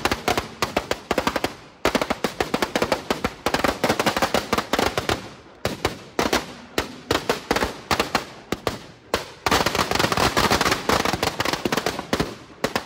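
A string of firecrackers going off in a rapid crackling run of sharp bangs, several a second, with a few brief pauses, then dying away near the end.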